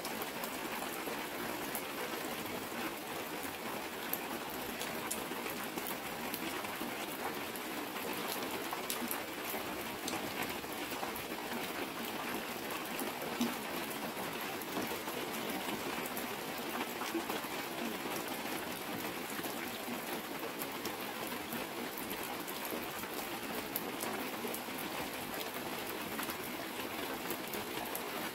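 Heavy rain falling steadily, drops striking a clear plastic sheet as water streams down it, with a constant hiss and many small sharp drop ticks.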